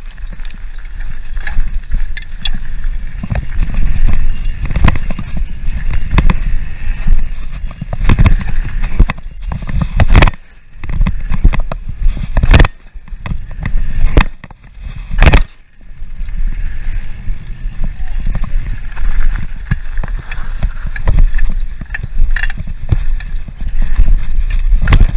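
Mountain bike ridden fast over dirt jumps and a pump track: tyres rolling on dirt and gravel, the chain and frame rattling and knocking over bumps, with heavy wind rumble on the microphone. The noise drops away for a moment three times around the middle.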